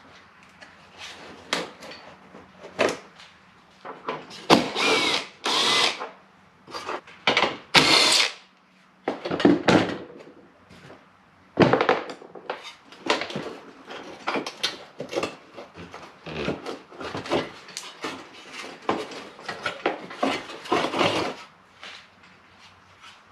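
Hand-held power tool running in short, irregular bursts, with clattering and knocks from the work between them; the longest bursts come about five and eight seconds in.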